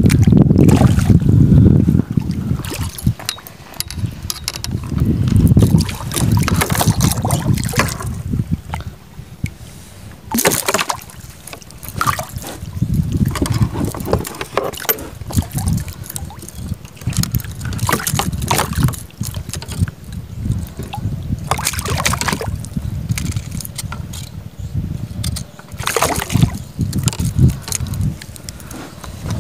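Wind buffeting the microphone in gusts over a sit-on-top plastic kayak on choppy water. Water slaps and laps against the hull, with scattered knocks and clicks throughout.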